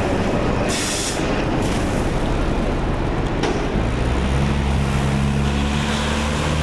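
Loud, rushing street noise with a motor vehicle engine running. A short hiss comes about a second in and a knock midway, and from a little past four seconds the engine's steady low hum stands out.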